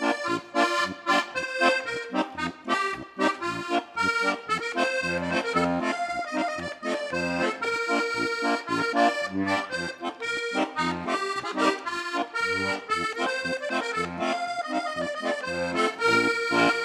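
Instrumental Polish regional folk music: a lively melody over a steady, pulsing bass beat.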